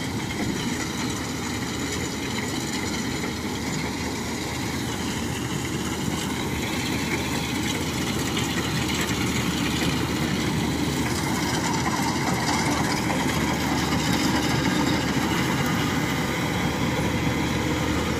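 Kubota DC-105 rice combine harvester running steadily while it cuts rice. The steady machine noise grows somewhat louder as it comes closer.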